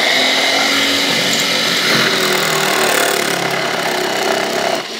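Bullet mixer's electric motor running with its slicer attachment, shredding a whole carrot pushed down the feed tube; the motor runs steadily and cuts off near the end.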